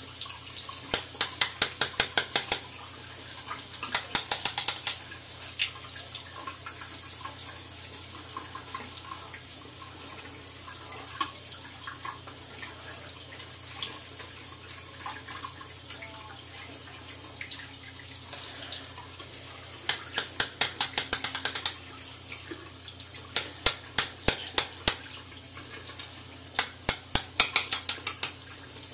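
Bathroom tap running steadily into the sink. Several runs of quick, sharp strokes come through over it, about six a second, each run lasting one to two seconds.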